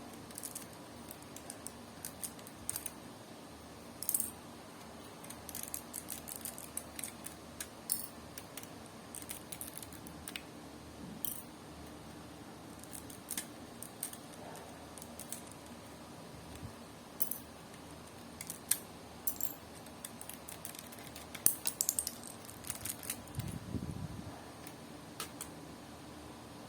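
Lego plastic pieces handled and snapped together, with scattered light clicks and short clatters.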